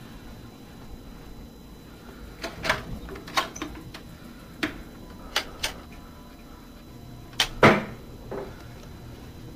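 Sharp knocks and clunks, some in close pairs, as an attic door is opened and someone climbs wooden attic stairs. The loudest knock comes near the end.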